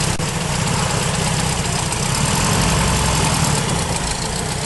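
A car engine idling steadily, with an even low pulse.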